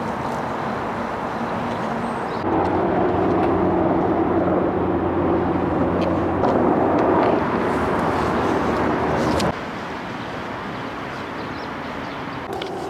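Steady vehicle running noise with a low hum; it gets louder about two and a half seconds in and drops abruptly about nine and a half seconds in.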